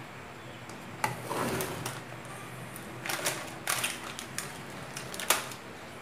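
Eating and table-handling noises: sharp clicks of metal chopsticks against a glass bowl and crinkling of a plastic packet, in a run of short clicks and rustles, with a loud click about a second in and another near the end.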